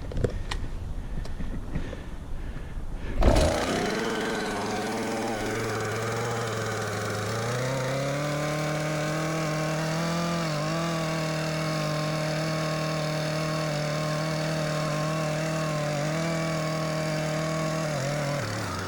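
Two-stroke chainsaw starting about three seconds in, then running steadily at a fast idle. Its pitch rises a little after a few seconds and dips briefly near the end.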